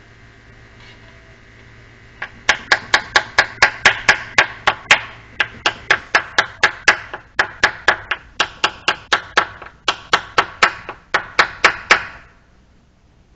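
Hammer driving nails by hand into hard oak timber: quick, evenly spaced sharp strikes, about four a second, in runs with brief pauses between them. It starts about two seconds in and stops near the end.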